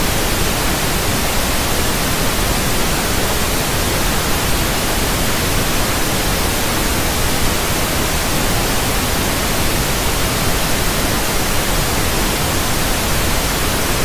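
Loud, steady TV static hiss, an even rushing white noise with no tone or rhythm in it.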